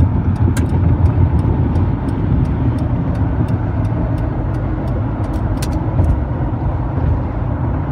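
Steady tyre and engine noise inside a car cruising on a freeway. A light ticking sounds about three times a second and stops about six seconds in.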